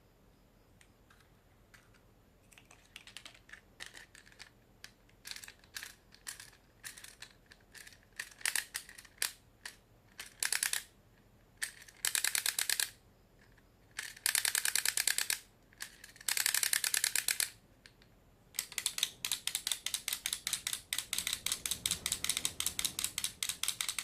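Dry mechanical clicking, scattered single clicks at first, then runs of fast ticking that last a second or more, the longest run near the end.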